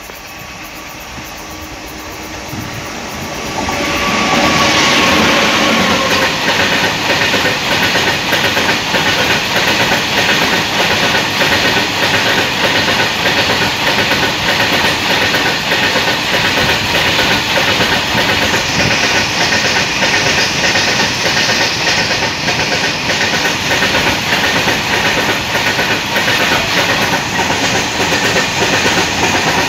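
A WAG-9HC three-phase electric freight locomotive approaches and passes about four seconds in, with a faint tone that dips in pitch as it goes by. A long rake of open freight wagons then rolls past close by, its wheels clattering steadily over the rail joints.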